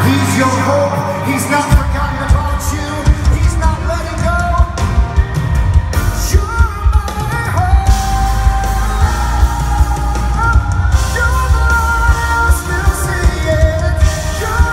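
Live pop-rock band playing in a large arena: a male lead vocal over electric guitars, keyboards, drums and bass, with a reverberant hall sound. The bass and drums come in heavily about two seconds in.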